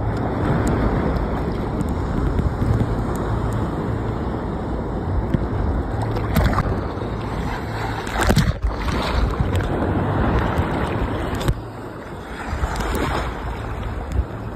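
Ocean surf sloshing close against the microphone in waist-deep water, a steady rushing wash with rumble. A little after eight seconds a wave breaks over it with a loud splash.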